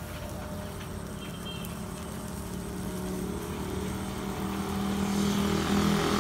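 A motor vehicle engine running nearby with a steady low hum that grows louder over the last few seconds.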